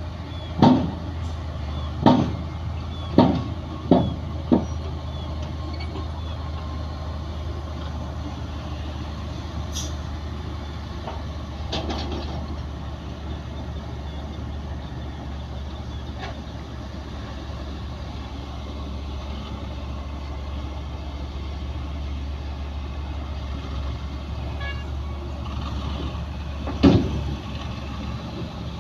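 Heavy diesel earthmoving machinery running steadily at a low drone, with a run of five loud metallic bangs in the first few seconds and one more near the end.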